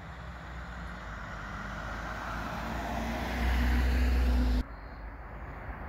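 A motor vehicle engine, growing steadily louder for about four seconds, then cut off abruptly by an edit; a quieter outdoor background follows.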